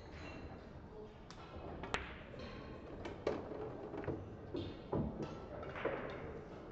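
Pool cue striking the cue ball with a sharp click about two seconds in, followed about a second later by two sharp clicks of balls hitting each other, then a few duller knocks of balls running on the table.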